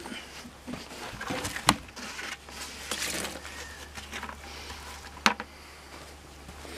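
A plastic mixing tub being lifted and moved, giving scraping and handling noise, with two sharp knocks, one about a second and a half in and one near the end.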